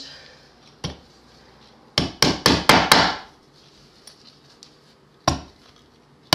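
Tack hammer driving small upholstery tacks into a wooden stool frame, tacking fabric taut in place. A single tap comes about a second in, then a quick run of about five blows. Another single tap follows past five seconds, and a new run of blows starts at the very end.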